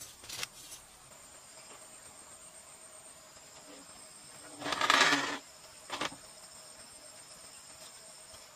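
Steady chirring of forest insects, with one scrape of a bladed tool on dirt just after the start. About five seconds in comes a loud noise lasting under a second, then a short knock a second later.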